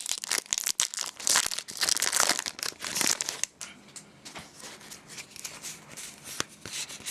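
Foil booster-pack wrapper crinkling as it is torn open, the crackling heaviest for about the first three seconds, then lighter rustling with a few sharp clicks.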